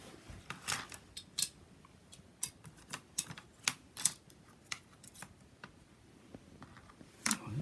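A string of light, irregular clicks and ticks, two or three a second, from a small hand tool and the plastic parts of a scale model helicopter being handled.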